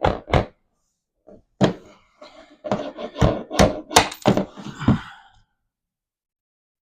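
Tools and hardware being handled during trim work: a run of about a dozen irregular knocks and clunks over roughly five seconds, then they stop.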